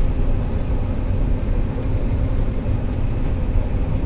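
Combine harvester running steadily while cutting soybeans: a constant low drone of engine and machinery with a faint steady hum.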